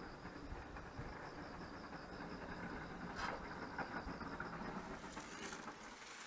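Outdoor background noise: a steady low rumble with a high, rapidly pulsing chirp that stops about three-quarters of the way in, and a couple of brief scuffs a little after three seconds in.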